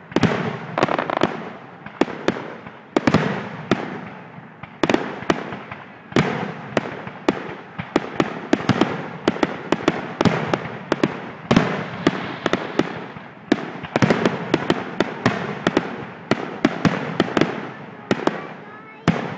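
Fireworks going off in a rapid, continuous barrage of sharp booms and crackling bursts, several reports a second, ending suddenly near the end.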